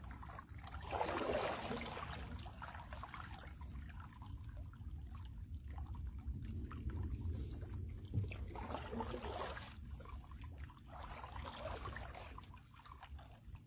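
Lake water trickling and dripping from a canoe paddle as it is stroked and lifted, in a few separate washes, over a steady low rumble.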